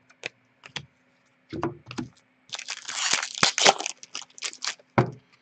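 A foil trading-card pack being torn open and crinkled, with a few sharp clicks of card handling before and after the main burst of crinkling.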